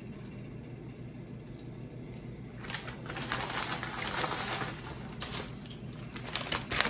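Paper takeout bag rustling and crinkling as it is grabbed and lifted, starting about two and a half seconds in, with many sharp crackles. Under it a steady low hum from a kitchen refrigerator.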